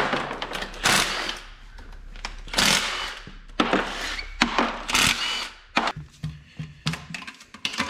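Handheld power tool run in short bursts, each about half a second long, roughly once a second, with lighter metallic clicks and rattles near the end.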